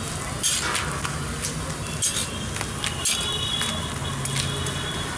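Paratha stall working sounds: short hissy swishes as thin dough is spread and flipped on an oiled steel table, over a steady low hum. There are faint clinks, and a thin high tone comes in about three seconds in and lasts for a second and a half.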